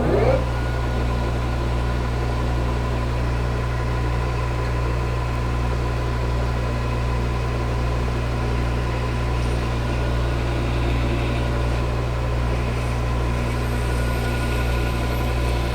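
Metal lathe running steadily: a low hum with a faint, steady whine.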